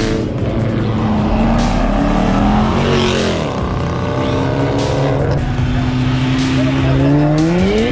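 Cars revving and accelerating away at a street car meet, engine notes falling and rising in pitch, with a steep climbing rev near the end.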